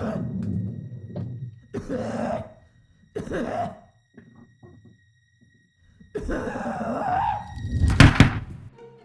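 A series of muffled thuds and knocks in a small room, ending in the loudest, a sharp clattering thud about eight seconds in.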